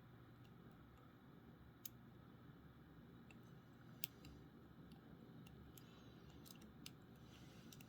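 Faint, scattered small clicks of a hook pick working the pin tumblers of a Draper Security 21mm padlock under tension during single-pin picking, over low room hiss; the sharpest clicks come about two and four seconds in.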